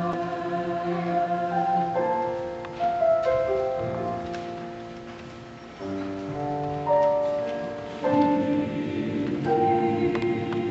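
A vocal group singing with piano accompaniment, held chords that change every two seconds or so, swelling and fading between changes.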